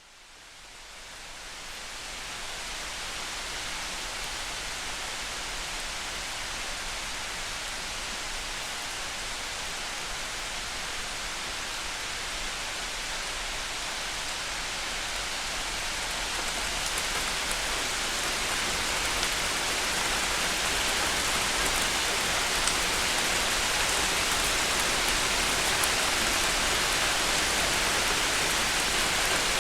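Steady rain falling, with no thunder heard. It fades in over the first couple of seconds and grows slowly louder.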